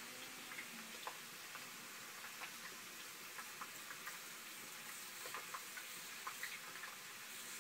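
Knife blade cutting a raw potato into a spiral as the potato is twisted on a skewer: faint, irregular crisp ticks and crunches, a few a second, over a steady low hiss.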